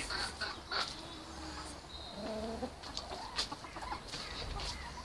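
Domestic poultry calling: a few short, faint clucking calls, the fullest about two seconds in.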